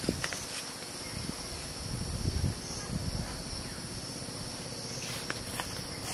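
Insects chirring in a steady, high-pitched chorus, with a few soft low thumps.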